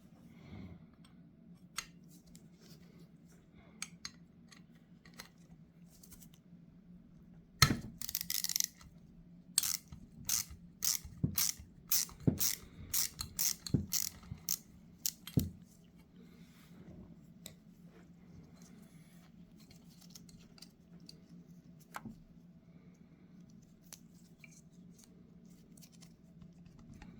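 Small metal carburetor parts and hand tools clicking and tapping as a Zenith 35/40 INAT float bowl is taken apart: scattered clicks, then a quick run of sharp taps and clinks between about 8 and 15 seconds in, over a faint steady hum.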